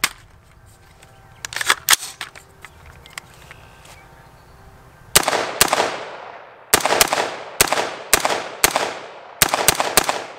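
A few short clicks, then from about five seconds in a Del-Ton AR-15 rifle fires .223 Remington rounds semi-automatically. There are about ten sharp shots, many in quick pairs, each with a ringing echo tail, and the rifle cycles the steel-cased ammunition normally.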